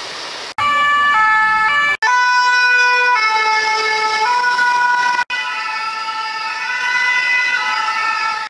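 French two-tone sirens on Paris fire brigade vehicles, stepping back and forth between two pitches. The sound comes in several clips cut together. The first half-second is street traffic noise, and the cuts break the sound off sharply about half a second, two seconds and five seconds in. In the last clip two sirens sound at once.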